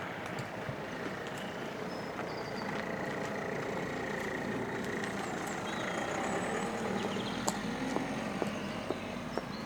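Steady traffic noise, swelling a little about two-thirds of the way through as a vehicle goes by.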